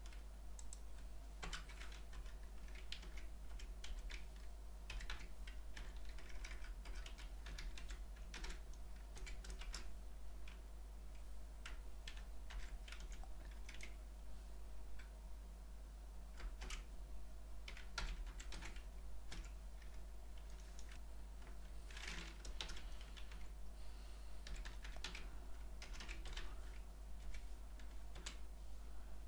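Computer keyboard typing in irregular runs of keystrokes, with a steady low hum underneath.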